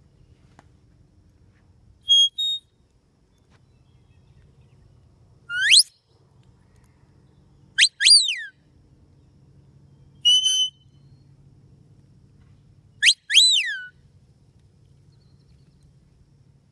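Herding whistle commands to a working stock dog: five short signals a few seconds apart. The first is a two-note pair of steady tones; the others are a quick upward sweep, rising-then-falling glides and one steady note.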